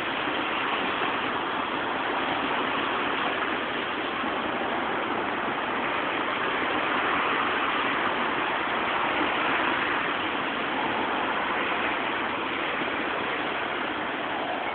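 Steady rushing noise with no engine note or other distinct sounds, swelling slightly around the middle.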